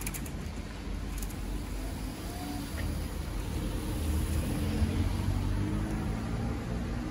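A car driving slowly over a level crossing, its engine and tyres making a steady low rumble.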